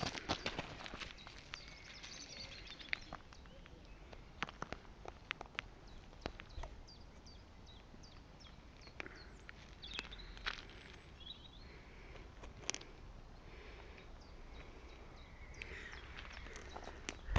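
Faint scattered clicks and crunches of loose slate gravel shifting as a European hedgehog moves over it and the camera is shifted close to the ground, with a few faint bird chirps behind.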